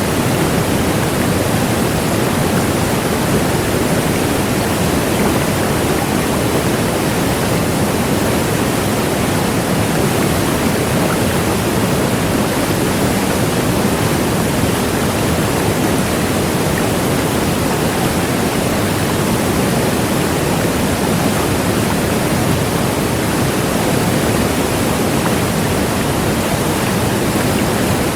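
Large waterfall: a steady, loud rush of falling water with no change over time.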